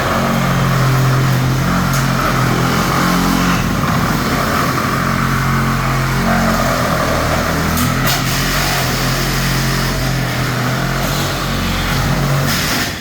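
DeWalt DCS382 XR cordless reciprocating saw with a wood blade running at full speed, cutting through four wooden studs in one long, steady cut. It stops near the end.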